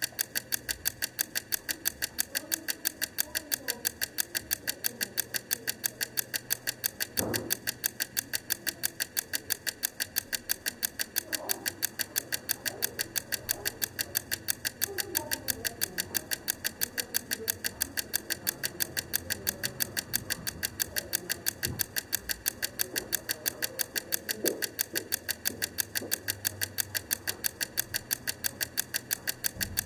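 Wrangler Blue Bell wind-up egg timer ticking steadily, about four ticks a second, as its clockwork runs down the set time.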